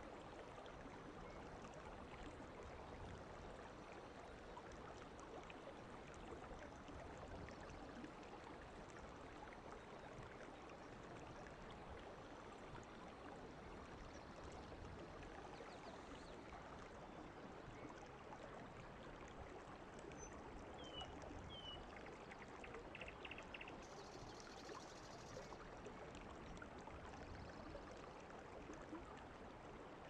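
Faint, steady rush of running water, as from an artificial waterfall or stream. Two short chirps come through about two-thirds of the way in.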